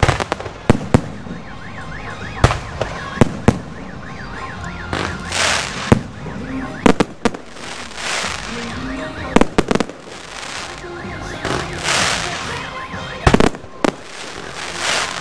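Aerial fireworks shells bursting in a string of sharp bangs at irregular intervals, with a crackling hiss that swells for about a second several times. An alarm warbles up and down behind them.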